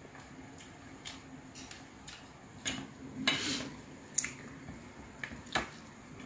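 Wooden spoon and chopsticks clicking and scraping against a stainless steel mixing bowl as bibimbap is stirred and scooped: a string of sharp clicks, with a louder stretch of scraping a little past three seconds in.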